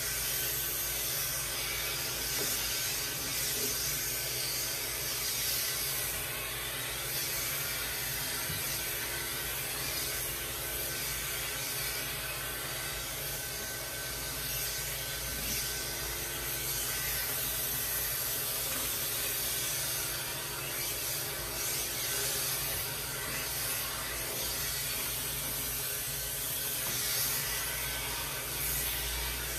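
Andis electric pet clippers with a clipper-vac hose attachment running steadily, the motor hum and the suction rush joined by the blade rubbing through a cat's long coat as the hair is cut and drawn away.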